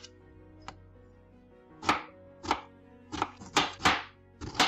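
Kitchen knife slicing strawberries on a cutting board: about six short, sharp knocks of the blade on the board at an uneven pace, mostly in the second half, over faint background music.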